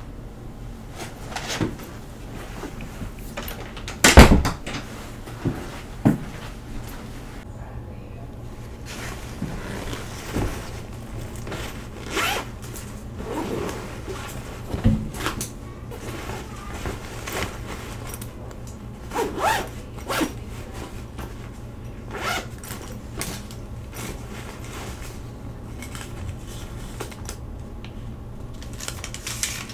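Zippers of a fabric backpack being opened and closed, with rustling and handling sounds as things are packed into it. A loud sharp thump comes about four seconds in.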